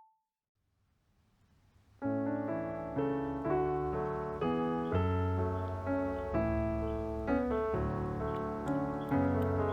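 Near silence, then background piano music starts about two seconds in and carries on as a gentle run of notes and chords.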